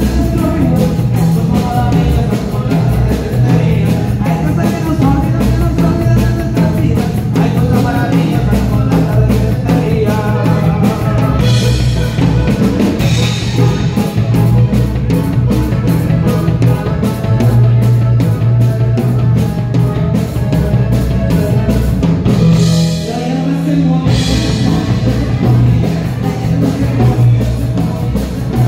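A live dance band playing loud through a PA, with a singer over guitar, a strong bass line and a steady beat. The bass drops out briefly about 23 seconds in, then comes back.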